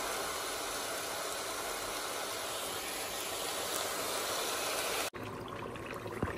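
A steady, even hiss with no clear source. About five seconds in it cuts off suddenly to a quieter passage with faint crackles from tomato stew frying in a pot.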